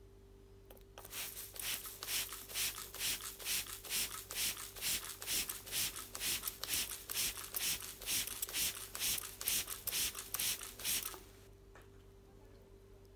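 A hand spray bottle pumped rapidly, about three short hissing squirts a second, misting dry Iceland moss lichen (Cetraria islandica). The spraying starts about a second in and stops abruptly near the end.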